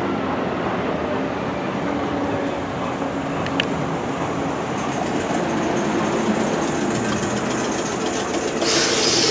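Class 455 electric multiple unit running slowly into the platform, its wheels and motors giving a steady rumble with a faint hum, and a click about three and a half seconds in. Near the end comes a loud burst of air hiss as the train comes to rest.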